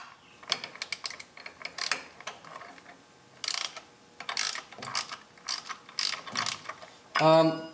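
Hand ratchet clicking in short back-and-forth strokes as it turns an end-cap wrench to unscrew an engine oil filter, in irregular runs of clicks. A man's voice starts near the end.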